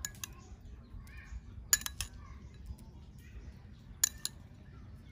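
Sharp clinks of kitchen utensils or dishware against a metal pan, coming in a few brief clusters: at the start, a loud group just under two seconds in, and another about four seconds in. They come while sliced red chilies are laid over raw egg and ground pork.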